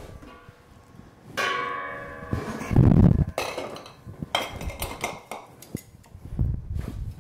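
Glass Mason jar set into a stainless steel stock pot among other jars: a clink about one and a half seconds in, with the metal pot ringing for about a second. A loud dull thump follows, then a few lighter knocks.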